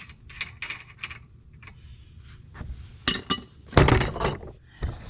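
Metal tools clinking and knocking against car suspension parts: light scattered clicks, then a few sharp metallic knocks and clanks in the second half, the loudest a little before the end.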